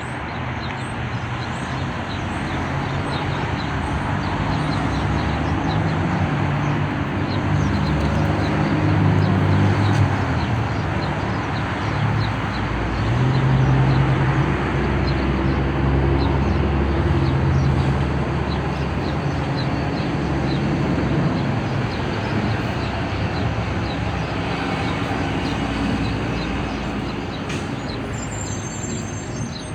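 Street traffic: the steady noise of passing vehicles, with the low engine sound of a heavy vehicle swelling through the middle and easing off toward the end.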